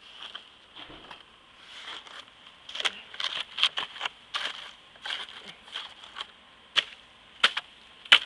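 Footsteps crunching in powdery snow, an uneven crunch every half second to a second, the sharpest ones near the end.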